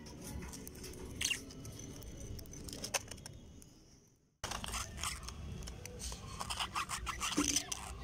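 Caged lovebirds chirping and chattering, mixed with scratchy clicks and scrapes. The sound fades away a little past halfway and comes back abruptly, busier, with quick high chirps and scratching.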